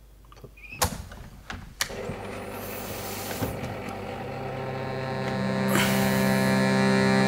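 A couple of sharp clicks about a second apart, then a harmonium starts a held chord that slowly swells louder, with a further note joining part way through.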